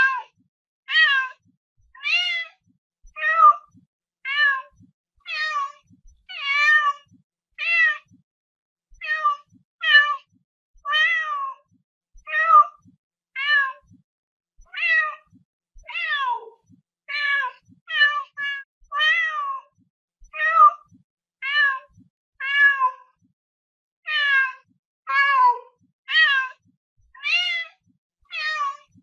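Domestic cat meowing over and over, about one short meow a second, with brief silent gaps between calls. Most meows bend up and then down in pitch.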